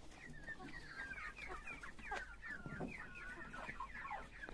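Hens clucking quietly as they feed, a string of many short rising and falling calls in quick succession.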